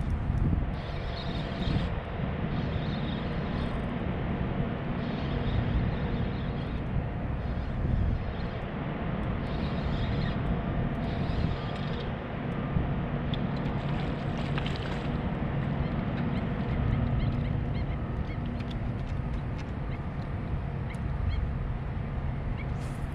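Wind rumbling over the camera microphone with a steady low hum under it, and roughly one-second spells of a spinning reel whirring as line is cranked in, recurring through the first half.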